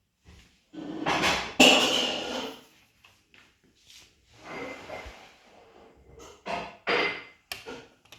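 Plastic LEGO Technic parts knocking and rattling as the model is handled, in a longer burst of clatter about a second in, a softer rustle around the middle, and several short sharp knocks near the end.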